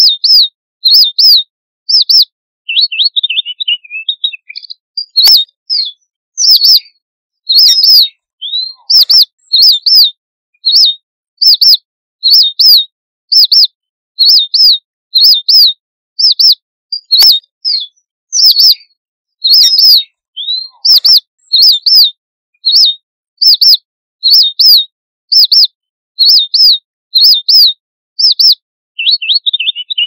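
Red munia (red avadavat) giving its flock-calling contact call: a steady series of short, high chirps, about one to two a second. A brief jumbled twitter comes about three seconds in and again near the end.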